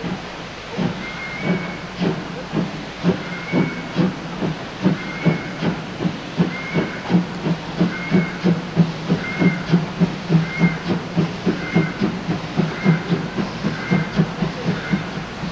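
Steam locomotive 64 419, a DR class 64 2-6-2 tank engine, working hard with its train: sharp exhaust chuffs that quicken steadily from about two to about four a second as it gathers speed. A short high squeak recurs roughly every second.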